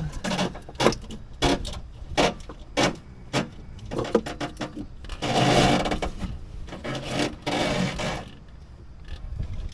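Irregular clicks and knocks of hands handling wires and parts while routing a wiring harness through a Jeep's body, with two longer rustling scrapes about five and seven seconds in.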